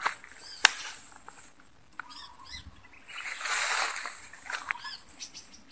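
Tall grass rustling and swishing as someone moves through it at the edge of a weedy pond, with a sharp click about half a second in and a louder rustling burst about three and a half seconds in.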